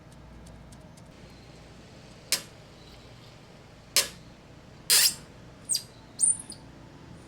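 About five short, sharp squeaks and clicks over some four seconds, from hand work with tools and plastic fittings on the kayak's hull. A couple of them end in a high chirp.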